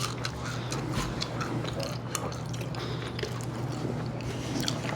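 Close-miked mouth sounds of eating and drinking: scattered wet clicks and smacks of chewing and sipping, over a steady low hum.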